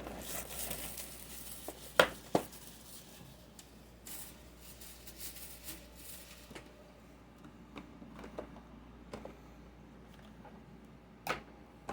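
Plastic shrink-wrap being torn and peeled off a Blu-ray gift set box, crinkling with a few sharp snaps, the loudest about two seconds in and again near the end.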